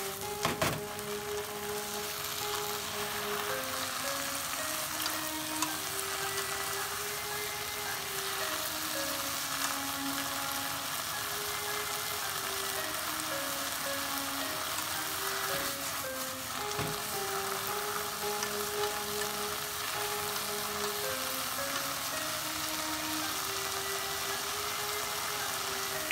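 Komatsuna greens and canned tuna sizzling as they stir-fry in a pan, with a couple of sharp knocks, once near the start and once past the middle, likely chopsticks striking the pan. A gentle background melody plays under the frying.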